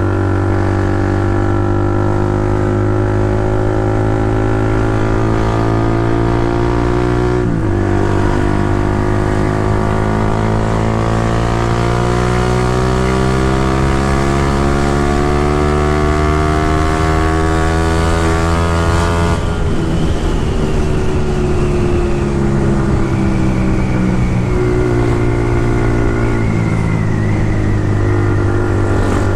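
Honda CB150R's single-cylinder engine running: a steady note with a brief dip about a third of the way in, then a pitch that climbs slowly for about ten seconds before dropping suddenly and settling lower.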